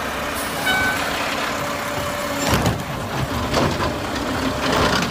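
Automated side-loader garbage truck running while its hydraulic arm lifts a wheeled trash cart, a steady engine noise with a brief whine and a couple of clanks about two and a half seconds in and a second later.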